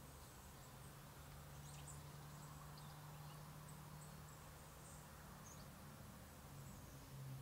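Near silence: a faint steady low hum, with a few faint, brief high chirps scattered through it.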